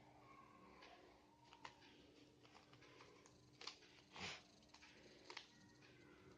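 Faint clicks of a Rubik's cube being twisted, a handful of short sharp ticks with a slightly longer rasp about four seconds in, over a faint steady hum.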